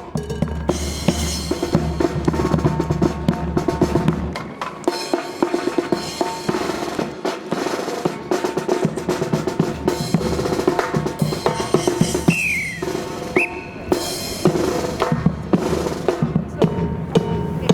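Marching band drums playing a rhythmic cadence, with snare drum rolls and bass drum hits.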